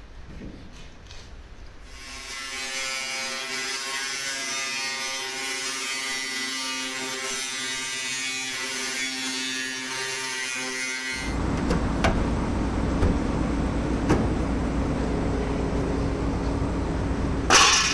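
Angle grinder with a cut-off wheel slicing through the truck's sheet-metal side wall: a steady high whine with several pitches, starting about two seconds in. About eleven seconds in it gives way to a low steady noise with scattered knocks, and there is a loud clatter near the end.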